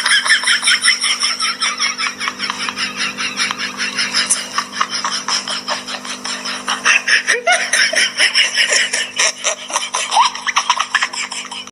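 High laughter in fast repeated pulses that runs on with only a short break about seven seconds in, over a steady low hum.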